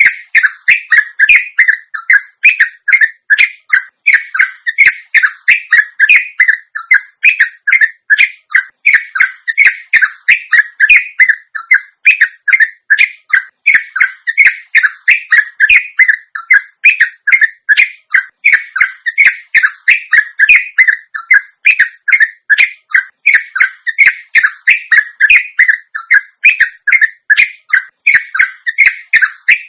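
Sooty-headed bulbul (trucuk) giving a long, unbroken run of short, sweeping chirps, about two or three a second, in an even rhythm.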